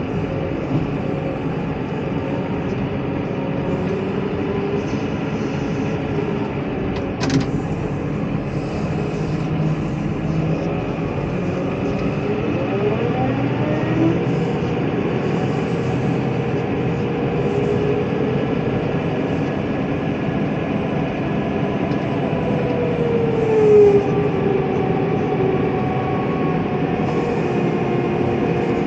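Tractor pushing a front-mounted snow plow through snow: the engine runs steadily under load, with whining tones that slide up and down in pitch. A sharp knock comes about a quarter of the way in, and a short, louder gliding whine comes near the end.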